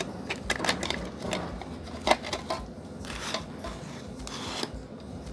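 Plastic e-bike charger case being handled and its cover lifted off the circuit board: scattered clicks and knocks with a few short rubbing scrapes, the sharpest knock about two seconds in.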